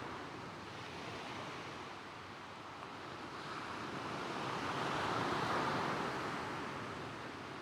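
Gentle sea waves washing over a shingle beach, one wave swelling up to its loudest about five seconds in and then drawing back, with soft coastal wind.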